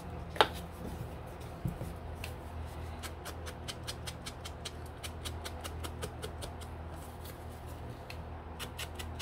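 A sharp plastic click as the lid comes off a Distress Ink pad, then a quick run of light, scratchy dabs, several a second, as a round ink blending tool is tapped on the pad and brushed along a card's edges, over a low steady hum.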